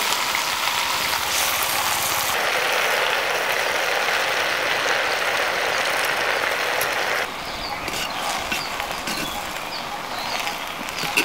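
Gongura leaves sizzling in a pot over a wood fire: a steady crackling hiss that drops sharply about seven seconds in, leaving a quieter background with faint high chirps.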